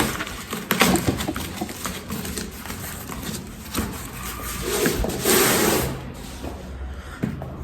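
Cardboard packaging being handled: scattered clicks and taps, with a longer rustling scrape about five seconds in as the inner box is pulled or opened.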